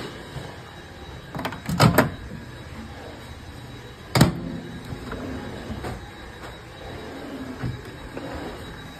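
Countertop microwave oven's door being worked by hand, its latch giving a sharp click about four seconds in, with a few knocks and clicks a couple of seconds earlier.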